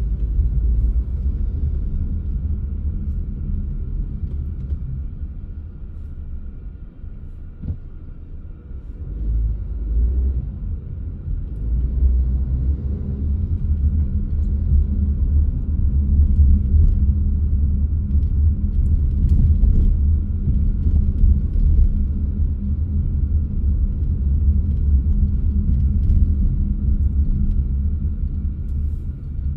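Low rumble of a car driving, with road and engine noise heard from inside the car. It eases off for a few seconds about a quarter of the way in, then builds again.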